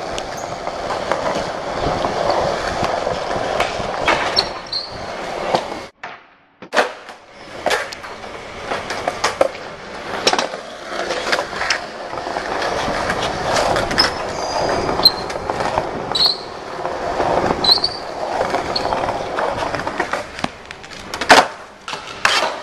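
Skateboard wheels rolling over a smooth polished stone floor, with several sharp clacks of boards popping and landing. The sound drops out briefly about six seconds in.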